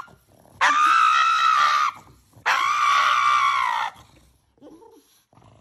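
A pug screaming in protest at having its nails clipped: two long, high-pitched screams about half a second apart, each lasting over a second.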